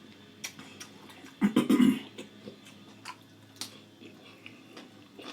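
Close-miked eating: wet mouth clicks and smacking while chewing, with one louder half-second sound about a second and a half in.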